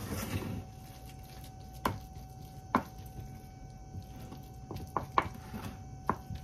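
Wooden spoon spreading and pressing a shredded codfish mixture level in a glass baking dish: soft squishing broken by a few sharp taps of the spoon against the glass. A faint steady hum runs underneath.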